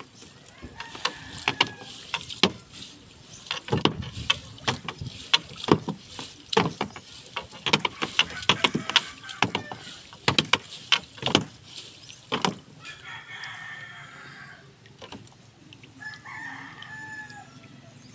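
Repeated sharp knocks and clatter of a fishing net being hauled and shaken out against an outrigger boat's side for most of the first twelve seconds. Then a rooster crows twice, more faintly.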